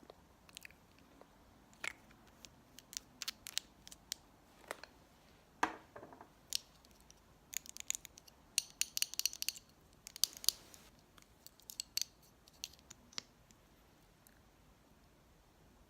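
Small crisp clicks and taps of makeup items and their packaging being handled, scattered through the stretch, with a quick run of clicks about eight to ten seconds in.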